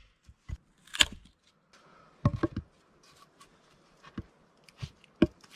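Irregular wooden knocks and taps from timber being worked with hand tools. There is a loud knock about a second in, a quick cluster of three or four knocks just after two seconds, and single knocks near the end.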